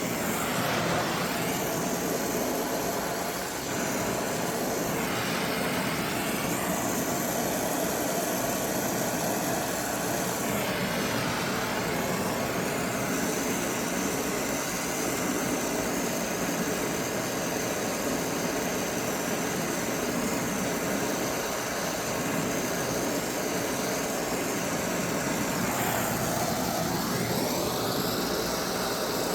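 Brazing torch flame running steadily as copper fittings are heated and brazed, its tone shifting a few times as the torch moves.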